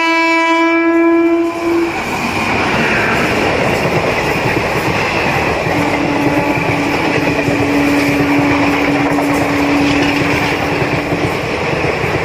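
Express train of ICF coaches hauled by a WAP-4 electric locomotive running through at speed. The locomotive's horn sounds for about two seconds at the start, and then the coaches rush past with a steady rumble and clatter of wheels. A second, lower horn note is held from about six to eleven seconds in.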